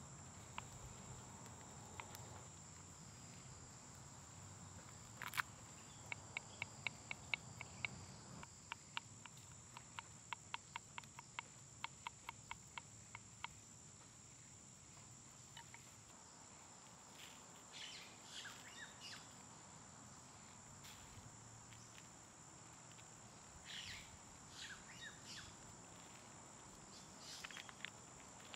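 A kitchen knife chopping garlic on a wooden cutting board: a run of quick sharp taps, about three or four a second, that stops about halfway through, followed later by a few softer scuffs. A steady high-pitched insect drone runs underneath.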